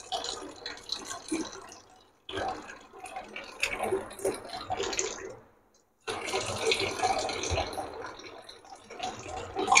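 Water running from an RO water purifier's tap into a small cup, in three stretches separated by short silences.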